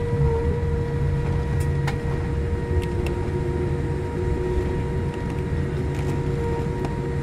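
Cabin noise inside a Boeing 787-8 airliner taxiing after landing: a steady low rumble with several steady whining tones, a lower tone joining about three seconds in, and a few light clicks.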